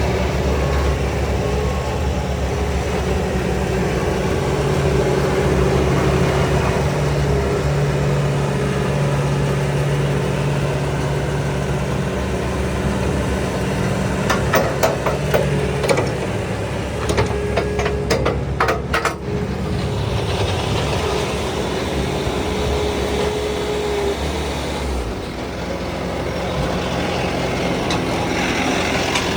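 Bobcat S530 skid steer's diesel engine running steadily, with a cluster of sharp clicks and clanks about halfway through and a change in the engine note near the end.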